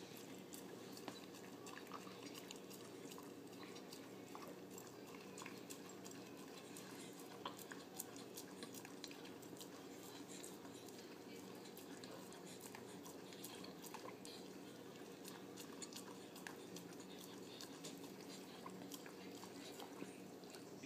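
A small dog licking and lapping spilled pie filling off the floor: a steady run of faint wet licks and smacks.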